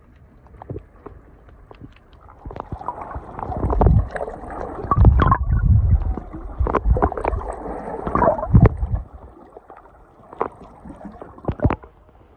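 Muffled underwater water noise picked up by a submerged camera: gurgling and sloshing, with scattered clicks and knocks. It swells louder for several seconds in the middle, then settles.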